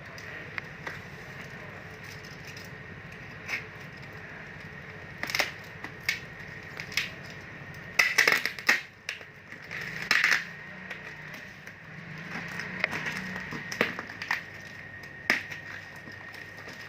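Packaging being handled while unboxing a travel iron: irregular crinkles, rustles and small clicks, with the loudest bursts about five, eight and ten seconds in.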